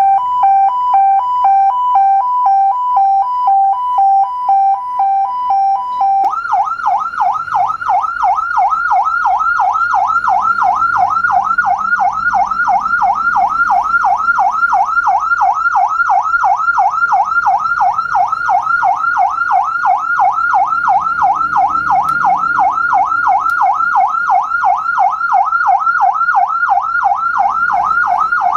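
Electronic siren from an ambulance light bar's built-in 200-watt PA siren unit, first sounding a two-tone hi-lo pattern that alternates about twice a second, then switching about six seconds in to a fast rising-and-falling tone of about four sweeps a second.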